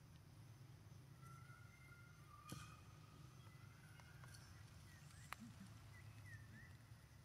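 Near silence: faint outdoor ambience with a steady low hum, a few faint high chirps, and two soft clicks.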